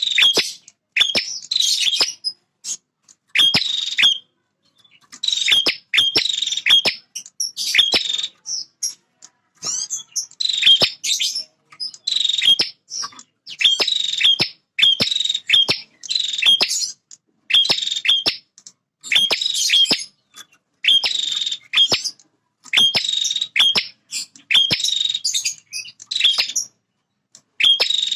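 Male prenjak (a small warbler) singing energetically: rapid, high-pitched chattering phrases repeated about once a second with short gaps. This is the male's territorial song, played to provoke other prenjak into singing.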